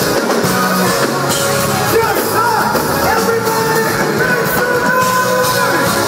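Loud live band music with singing over drums, heard from within the crowd through a phone's microphone.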